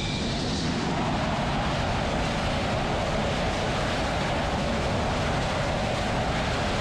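Dassault Rafale M's twin M88 jet engines running at full afterburner through a carrier catapult launch and climb-out. A high engine whine stops right at the start and gives way to a steady, rushing jet noise.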